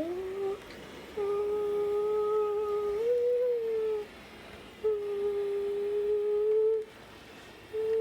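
A child's voice humming long, steady notes: a short rising note, then three held notes of about two seconds each with short breaks between, the first stepping slightly up in pitch near its end.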